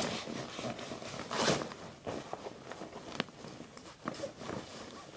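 Rustling and bumping of an accordion folder being pushed into a fabric backpack, with scattered light knocks and a louder rustle about a second and a half in.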